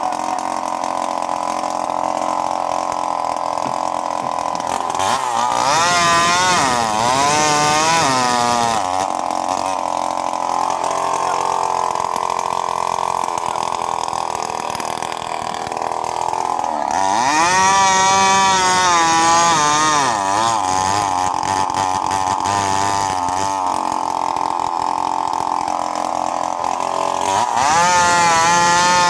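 Chainsaw engine running continuously as it cuts wood. Its pitch wavers up and down in three stretches, about a quarter of the way in, just past the middle and near the end.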